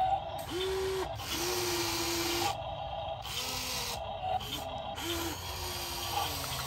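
Small electric motors of a toy remote-control excavator whining as the boom and bucket move, in several short runs that start and stop.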